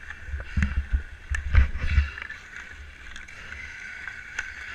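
Ice hockey skates scraping across the ice, with a few sharp clacks and some low thumps on the microphone during the first two seconds.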